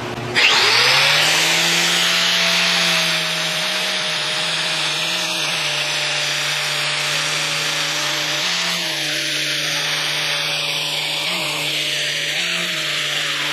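A power tool's motor spins up and runs steadily while an abrasive scouring pad rubs against the steel vise jaws, polishing them, with a constant hiss.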